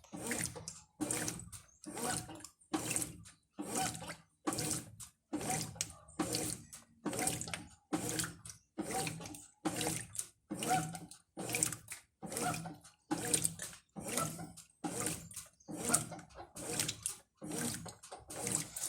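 Brastemp Ative 11 kg top-load washing machine agitating a load of clothes in water without turbo. Its eight-blade agitator swishes back and forth in an even rhythm a little faster than once a second. The agitation is somewhat weak for an eight-blade agitator, but it still pulls the load around.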